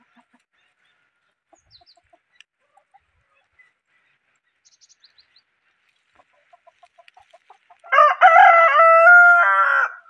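Desi rooster giving a few soft clucks that quicken, then crowing once, loud, for about two seconds near the end.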